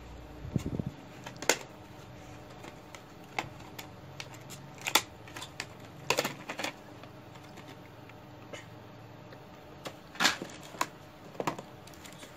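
Hard plastic blister packs of hand tools being handled and shifted about in a cardboard box: scattered clicks, taps and crinkles, about a dozen in all.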